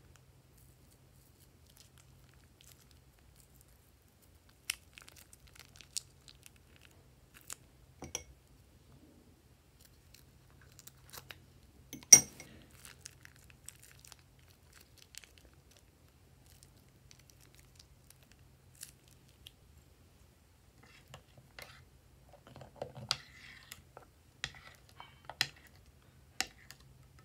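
Plastic piping bags crinkling as clear glue is squeezed out of them into a glass dish, with scattered small clicks and one sharper click about twelve seconds in. From a little past twenty seconds, a plastic spatula starts stirring the glue, bringing denser clicks and scrapes.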